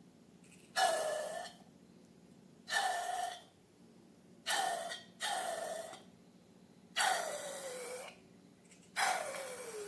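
Six short breathy rushes of air, each with a tone that slides downward, coming at irregular intervals about one to two seconds apart.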